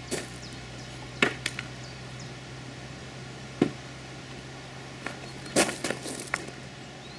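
Footsteps on gravel and a few sharp knocks and clacks as the broken halves of a coconut shell are picked up and handled at a wooden table.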